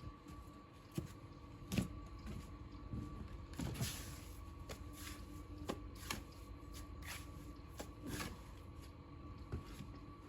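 Scattered light knocks and scrapes, one longer scrape about four seconds in, over a faint steady hum.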